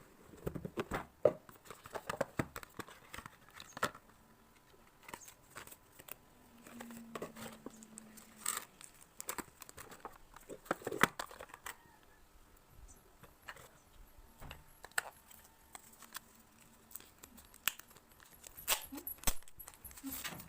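Smartphone unboxing: the cardboard retail box and its packaging are handled, with irregular rustling, crinkling and tearing and scattered clicks and taps.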